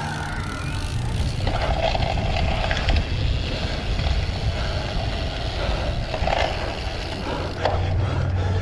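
Rumble of a cyclocross bike being raced over rough, muddy ground, with heavy wind noise on the microphone.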